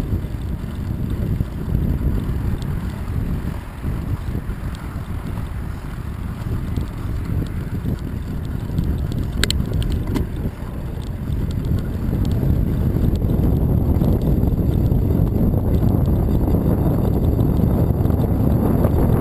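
Wind buffeting the microphone over the low rumble of bicycle tyres rolling on a paved bridge deck. A few sharp clicks come about halfway through, and the rumble grows louder in the last third.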